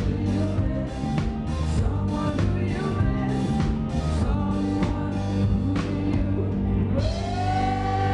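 A live pop-rock band plays with drums, bass and vocals, the drums hitting at a steady beat about twice a second. Around seven seconds in, the drum hits stop and a sustained lead note slides up and holds.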